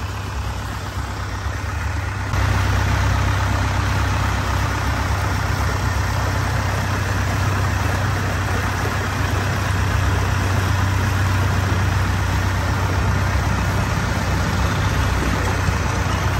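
Motorboat engine running steadily as a low drone under a hiss, getting louder about two seconds in and then holding level.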